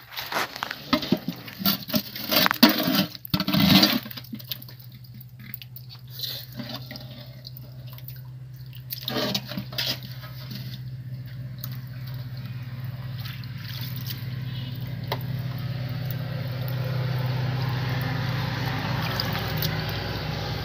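Water splashing and sloshing as hands grope among stones in shallow water, loudest in the first four seconds. After that a steady low hum continues under a soft watery hiss.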